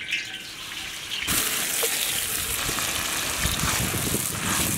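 Sliced onions dropped into hot oil in a large kadai. The oil starts sizzling suddenly just over a second in, then fries steadily and loudly.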